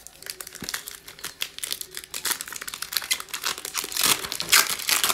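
Foil wrapper of a basketball trading card pack crinkling and tearing as it is ripped open by hand: a dense run of sharp crackles that grows loudest near the end as the wrapper is pulled apart.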